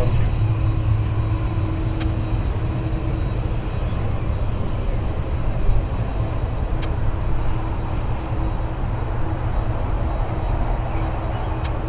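Boeing 767-300 freighter's jet engines at taxi power, heard as a steady low rumble and hiss with a faint constant hum.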